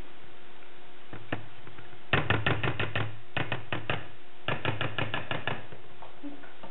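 Wooden spoon knocking rapidly against the side of a stainless steel saucepan of thick rice pudding. It makes two single knocks, then three quick runs of sharp clicks at about eight a second.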